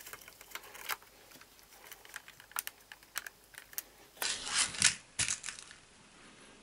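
Light plastic clicks and taps as parts of a plastic model V8 engine kit are handled and fitted, with a louder clatter of small screws in a plastic tub about four seconds in.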